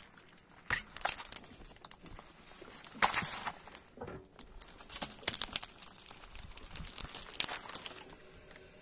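Car tyre crushing plastic piping bags filled with soft paste on gravelly asphalt: irregular crinkling and crackling of plastic with crunching grit. The loudest burst of crackling comes about three seconds in, as a bag splits open under the tyre.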